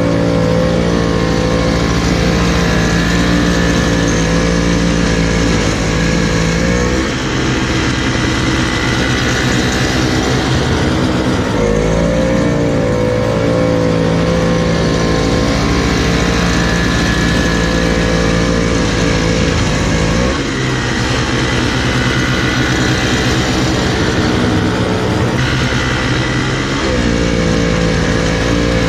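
Engine running steadily, its pitch dropping and picking back up every few seconds as the load on it changes.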